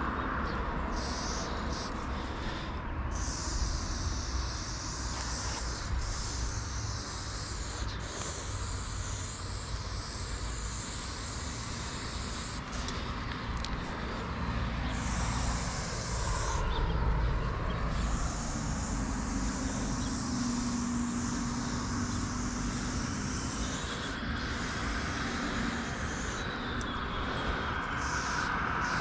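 Aerosol spray-paint can hissing as black outline lines are sprayed, in bursts of a few seconds with short breaks between them.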